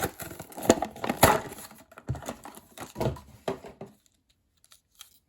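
Hands opening a toy die-cast monster truck's cardboard and plastic packaging: irregular crackles, clicks and knocks that stop about four seconds in.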